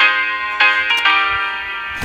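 Background music: pitched notes struck a few times and left to fade.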